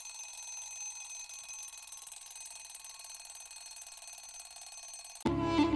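A steady, high-pitched, alarm-like electronic ringing made of several held tones. It cuts off abruptly about five seconds in, when louder music starts.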